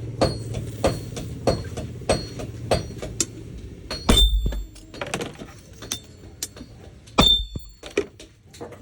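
Blacksmith's hammer striking metal on an anvil: a steady run of blows about every two-thirds of a second, then two heavier ringing strikes about four and seven seconds in, with a low hum under the first half.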